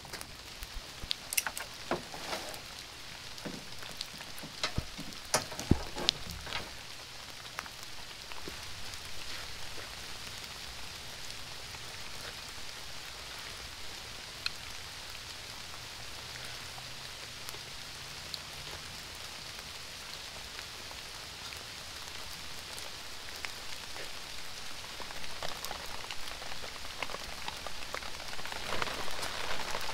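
Rain falling with a steady hiss. In the first six seconds there are sharp clicks and crackles as the plastic tarp and its straps are handled, and the tarp rustles again near the end.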